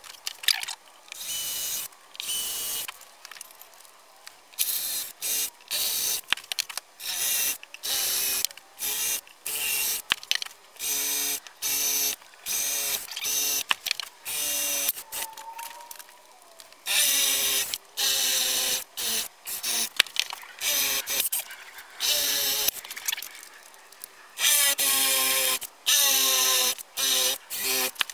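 Power drill boring a screw hole through a foil mast and its adapter mount. The motor runs in many short trigger bursts, stopping and starting, and its whine rises in pitch as it spins up.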